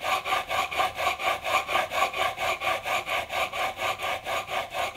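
Steel plane iron in a honing guide rubbed rapidly back and forth on a coarse 400-grit diamond sharpening stone, an even run of scraping strokes about five a second. The secondary bevel is being honed, with pressure shifted from one side of the iron to the other to put a slight camber on the edge.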